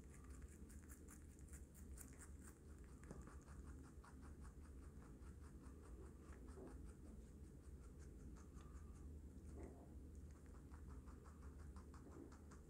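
A young rabbit chewing a chopped vegetable salad of lettuce, carrot and watermelon, picked up close: a quick, faint, steady run of small crunching clicks, several a second.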